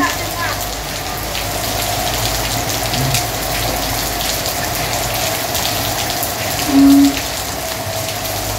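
Steady rain falling on a paved street, with single drops striking close by. A short, loud, low-pitched beep sounds once about seven seconds in.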